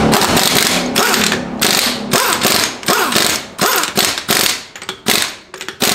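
Cordless impact wrench run on a car's wheel lug nuts to tighten them: a long hammering run, then a string of short bursts about two a second.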